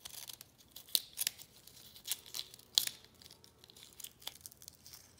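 Scissors snipping into a dry, papery silk moth cocoon (Polyphemus moth): a series of irregular sharp snips with crinkling and tearing of the cocoon wall.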